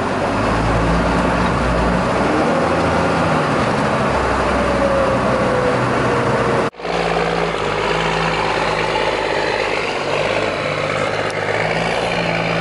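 Turbo diesel engine of a miniature Peterbilt-style pickup running steadily as the truck cruises, heard from on board with road noise. About halfway through it cuts abruptly to the same engine heard from the roadside as the truck drives past without hard acceleration.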